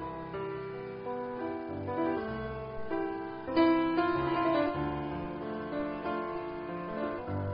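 Background piano music: slow, held notes and chords, with a louder chord struck about three and a half seconds in.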